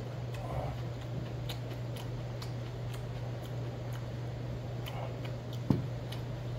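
Metal spoon scraping and clinking against a stainless steel bowl as bibimbap is mixed, a scatter of small light ticks with one sharper clink near the end. A steady low hum runs underneath.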